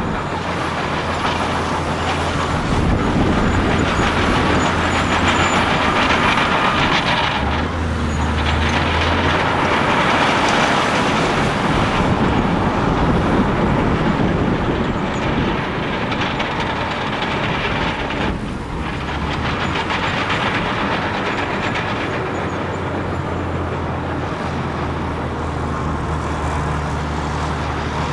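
Large crawler bulldozer working: its diesel engine runs steadily while the steel tracks clank and rattle.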